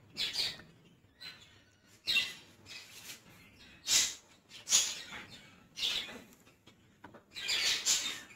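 Red-eared slider paddling in shallow water in a plastic tub: about six short splashing, scrabbling noises, each under a second, with quiet gaps between.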